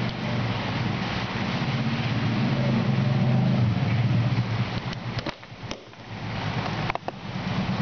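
An engine running with a fast, even throb. It drops away for about a second and a half past the middle, with a few sharp clicks around then, and comes back near the end.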